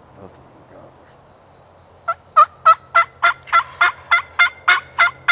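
Turkey yelping: a run of about a dozen evenly spaced, loud yelps, about three a second, starting about two seconds in.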